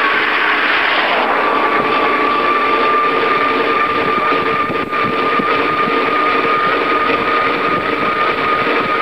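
Steady whirring road noise of a moving bicycle, heard through a handlebar-mounted camera, with a constant high whine. An oncoming car passes in the first second.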